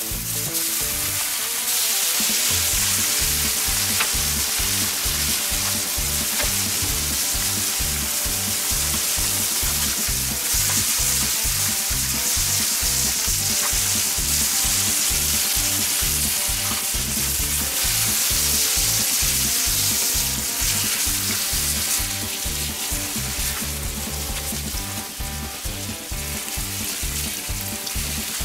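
Bacon sizzling on a hot steel fire plate (Feuerhand Pyron plancha). The sizzle sets in as the first strips go down, about two seconds in, and then runs on steadily.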